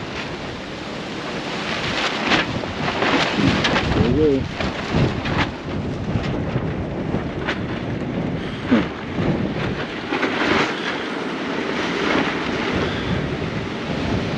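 Strong gusty wind buffeting the microphone, rising and falling in gusts, with tarps rustling and flapping in the wind in short sudden cracks.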